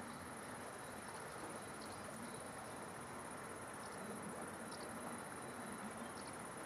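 Faint insect chirring, typical of crickets: a steady high-pitched trill with no breaks. Short, faint high chirps come about once a second over it.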